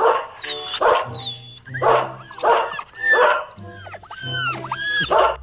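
A dog barking, several short barks in a row, over light background music.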